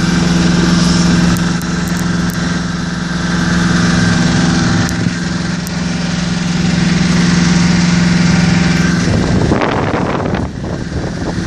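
A small boat engine, the yacht's auxiliary motor, running at a steady hum. About nine seconds in, the hum gives way to wind buffeting the microphone.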